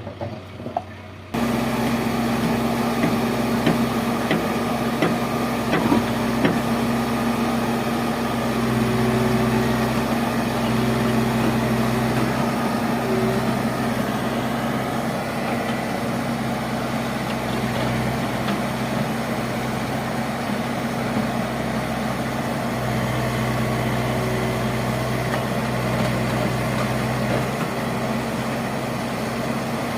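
Engine of a construction machine running steadily, cutting in suddenly about a second in. Its note strengthens twice for a few seconds, then settles back.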